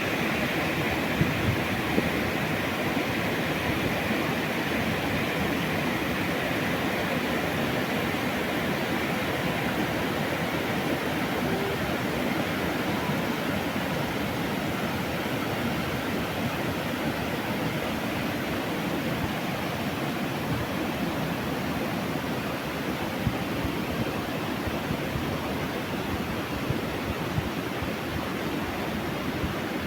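Floodwater rushing steadily: a dense, even noise that does not let up.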